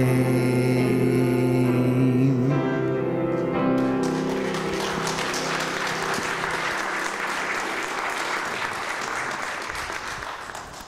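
A man sings the held final word of a gospel song over piano, the note ending about three seconds in. A congregation then applauds, the clapping fading out near the end.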